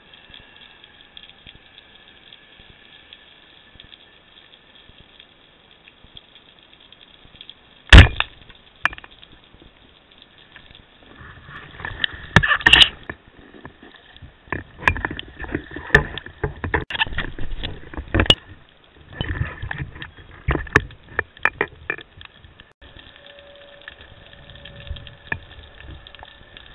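Underwater, a speargun fires with one sharp crack about eight seconds in. It is followed by irregular knocks, rattles and water noise as the speared fish is handled on the spear shaft.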